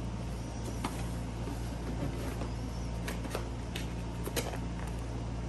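Scattered light clicks and rustles of boxed padlocks and packaging being handled, over a steady low hum.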